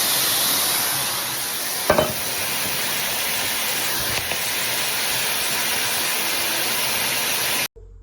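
JOMST filtered handheld shower head spraying water in a steady, even hiss, with a brief knock about two seconds in; the spray cuts off abruptly just before the end.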